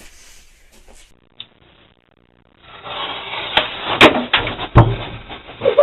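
Handling noise as the camera is checked: rubbing and scraping with three sharp knocks, after a brief dropout into near silence.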